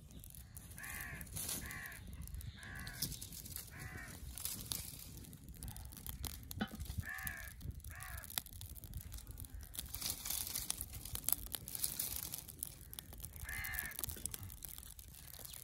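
A crow cawing repeatedly: a run of about five caws in the first few seconds, two more near the middle and one near the end. Faint crackling and snapping of a small wood fire being fed dry twigs lies underneath.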